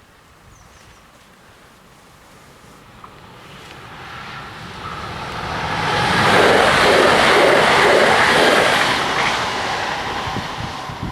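A TER regional passenger train passing over a level crossing: the rumble builds from about three seconds in, is loudest through the middle with a pulsing wheel-and-rail rhythm, and fades toward the end.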